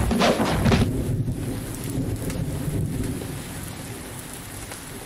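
Steady rain with a roll of thunder that is loudest in the first second and rumbles away over the next two or three seconds.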